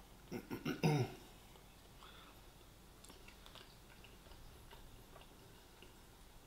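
A man clears his throat in a few quick bursts about half a second in, the last one ending in a short low voiced grunt. After that, faint scattered chewing clicks.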